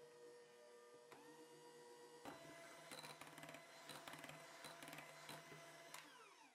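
Electric hand mixer whipping a thick cream cheese and cream mixture in a glass bowl: a steady motor whine that jumps to a higher pitch about a second in. From about two seconds in, the beaters tick and clink repeatedly against the glass, and near the end the motor is switched off and winds down with a falling whine.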